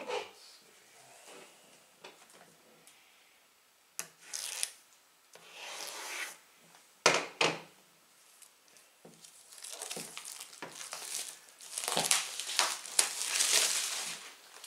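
Scissors cutting the packaging of a large boxed book, with two sharp snips about halfway through, then a longer stretch of cardboard rubbing and scraping as the box is worked open by hand.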